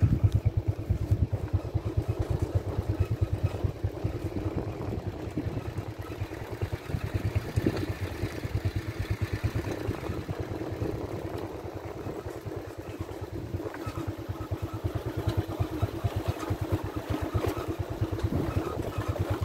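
A vehicle driving along a road, heard as a steady, rapidly pulsing low rumble of engine and road noise.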